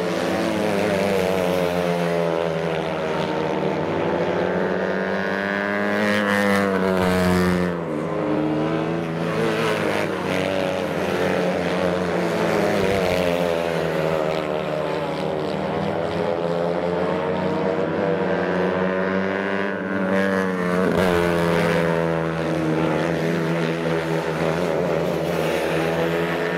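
Several outlaw racing kart engines running at race speed around the track, several tones rising and falling as the karts accelerate down the straights and lift for the corners. The sound swells as karts pass closest about six seconds in and again about twenty seconds in.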